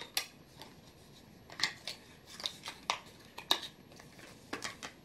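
Small perfume boxes and packaging being handled on a table: a series of about ten short, irregular rustles and taps.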